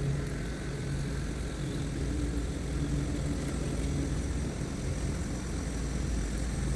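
Steady low hum of an idling engine, with wind rumbling on the microphone.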